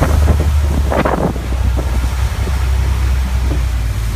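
Long-tail canal boat's engine running with a steady low drone, with wind buffeting the microphone.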